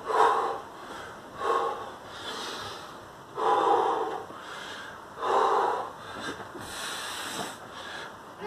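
A man breathing hard from exertion during navy seal burpees, with a loud breath every second or two and one longer breath about halfway through.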